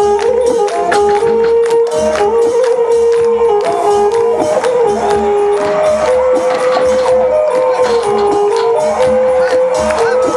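Traditional music played loudly: a melody of long held notes that steps from pitch to pitch over a regular low drum beat, with dense jingling, clicking hand percussion.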